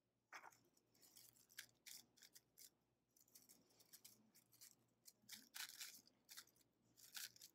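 Faint, irregular scratchy rustling from wrapping a perm: a comb worked through wet hair and a paper perm end wrap handled around the hair ends.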